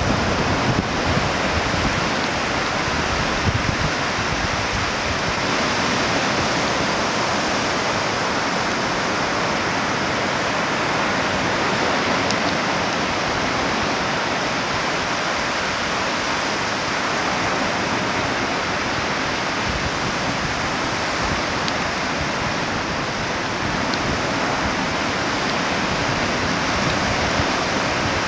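Adriatic Sea surf breaking on the beach and along a low breakwater, a steady rushing wash, with wind rumbling on the microphone.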